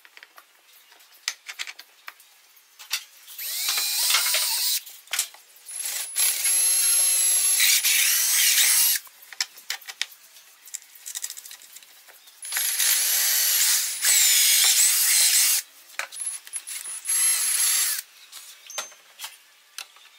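A power tool running in four bursts of one to three seconds each, steady and high-pitched while it runs. Short clicks and knocks of tools being handled fall between the bursts.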